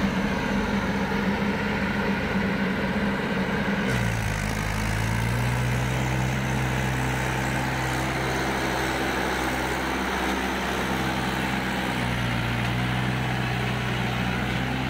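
Diesel tractor engines, a Swaraj 843 XM among them, running at a steady speed. About four seconds in, the engine note changes abruptly to a different steady pitch.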